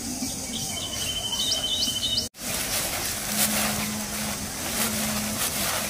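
Flour poured from a plastic sack into an aluminium pot, the sack rustling and crackling. A bird calls with a few rising chirps in the first two seconds, the sound cuts out for an instant just after that, and a low steady hum runs under the second half.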